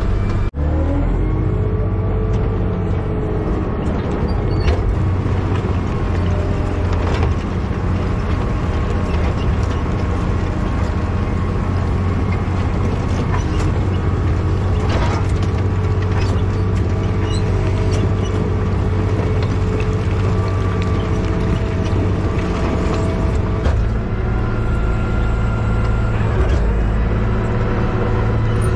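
Heavy road-construction machine's engine running steadily, a low hum with a few higher steady tones over it. The sound drops out briefly about half a second in, then carries on unchanged.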